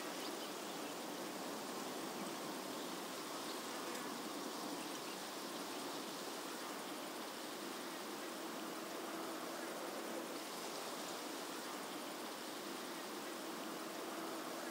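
Steady outdoor background ambience: an even hiss, with a faint low hum that comes and goes and grows stronger near the end.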